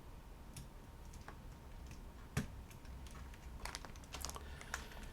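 Sharp plastic clicks of Lego pieces being handled and pressed into place. A few faint clicks, a louder one a little past two seconds in, then a quicker run of clicks near the end.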